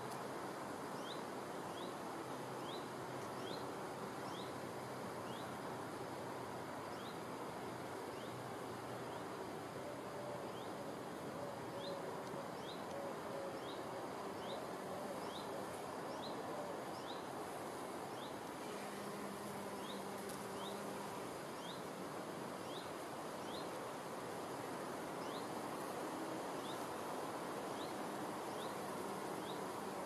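Outdoor meadow ambience of insects buzzing faintly over a steady hiss, with a short high rising chirp repeated in runs of about two a second.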